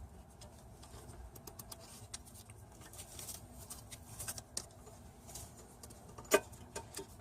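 Scattered light clicks and taps of tools and metal parts being handled at the engine while fitting timing belt pulleys, with one sharper click about six seconds in.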